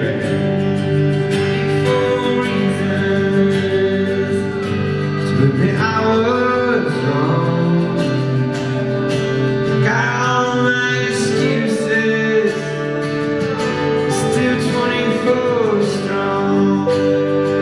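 Live rock band playing a slow song: guitars under a male lead vocal, which sings a few long phrases that bend in pitch.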